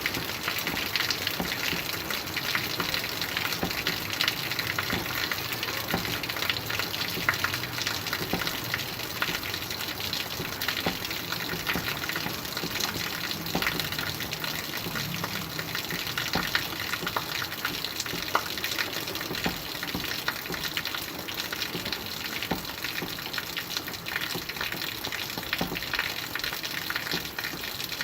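Steady rain falling: an even, dense hiss with many small drop ticks throughout.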